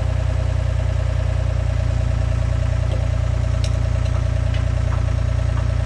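Gehl skid-steer loader's engine running steadily, with a few faint metallic clicks partway through.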